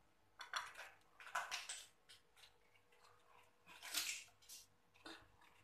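Biting and chewing raw green mango slices, a few short crunching bursts, the strongest about four seconds in.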